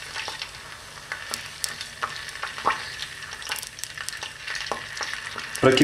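Sunflower oil heating in a pot on the stove, sizzling with scattered irregular crackles and pops as it comes up to the boil.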